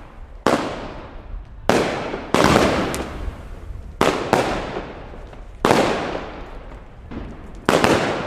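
Fireworks bursting: a string of loud bangs, about eight, coming every second or so, each trailing off in an echo.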